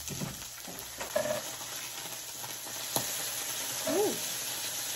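Meat sizzling on an electric griddle, with metal tongs clicking and scraping as pieces are moved; one sharp click about three seconds in.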